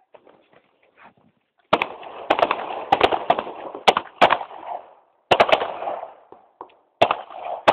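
Several handguns firing in rapid, overlapping strings of shots, each shot followed by an echo. There are three strings: a long one starting about two seconds in, a shorter one a little past five seconds, and another near the end.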